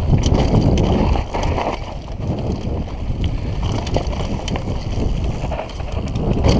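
Mountain bike riding fast down a dry dirt trail: wind rushing over the action camera's microphone, tyres on loose dirt, and a steady run of clicks and rattles from the bike over the bumps.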